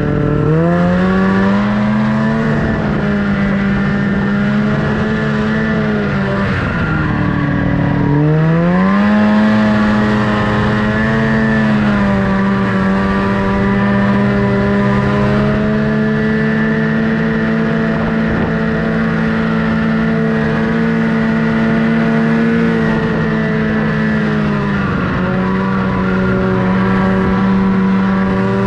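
Snowmobile engine running under throttle, its pitch climbing as it speeds up, dropping as the throttle is eased off about six seconds in, then rising again and holding steady, with another brief dip near the end.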